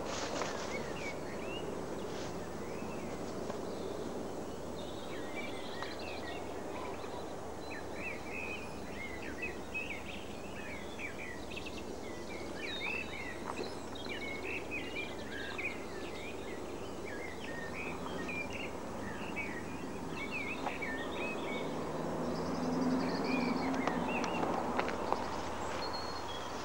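Small birds chirping in many short, quick calls over a steady background of low outdoor noise; the chirping thins out toward the end as a low hum swells in.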